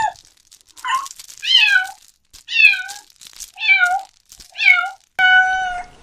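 Cat meowing repeatedly: six short meows about a second apart, each falling in pitch, the last one longer and steadier.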